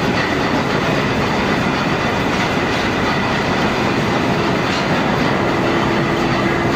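Machine tool running steadily while cutting metal, a loud continuous mechanical noise with a faint high whine; a lower steady tone joins about five seconds in.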